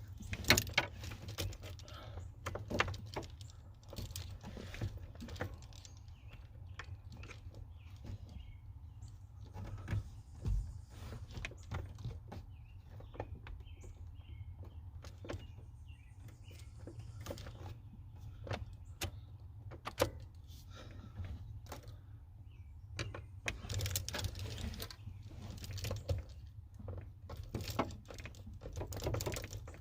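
Scattered small metal clicks, taps and scrapes of a hand tool working at a stubborn pin in a pickup truck's steering column, the pin refusing to come out.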